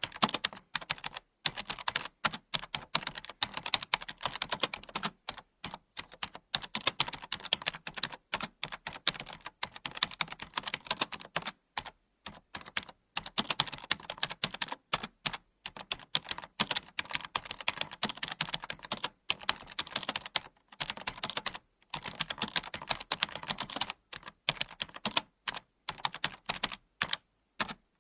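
Continuous typing on a computer keyboard: rapid, irregular key clicks with short pauses between bursts.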